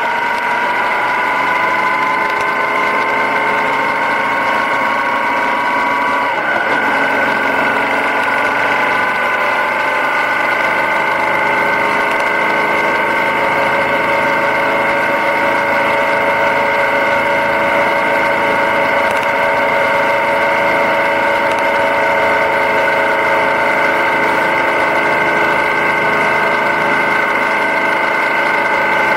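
Yamaha Ténéré 700's parallel-twin engine running under way, its note climbing for the first six seconds, dropping at a gear change about six seconds in, then holding steady at cruise.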